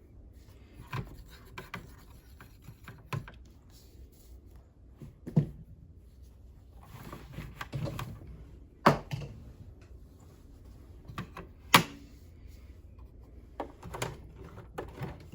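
Scattered clicks, knocks and rubbing from hands handling and reassembling an old Kenmore sewing machine, with two louder knocks about nine and twelve seconds in.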